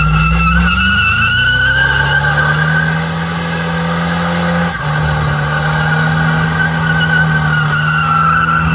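Muscle car doing a burnout: the engine is held at high revs while the spinning rear tyres squeal steadily. The revs climb in the first second, dip briefly about halfway through, then hold high again.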